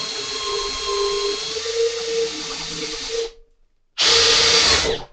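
Makita 40V GPH01 cordless hammer drill on its lowest speed, boring a 1-1/4 inch spade bit through 4x4 lumber, running with a steady whine. The drill stops abruptly a little past three seconds in, runs again in a short burst about a second later, and stops again near the end.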